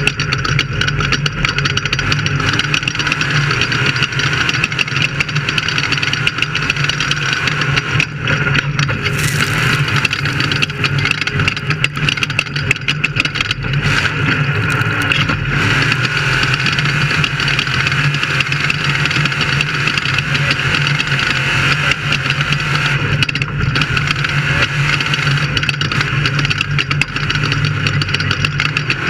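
Off-road race vehicle's engine running steadily under load, buried in a constant loud rushing noise. About nine seconds in there is a brief sharp hiss.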